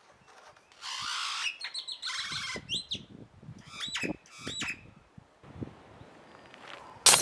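Birds chirping and squawking in short rising-and-falling calls, then a single very loud gunshot near the end.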